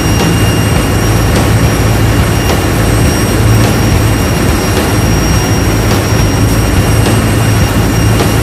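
Loud, steady drone of running machinery, strongest in a low hum, with a few sharp clicks from a ratchet wrench being worked on the fuel injection valve nuts.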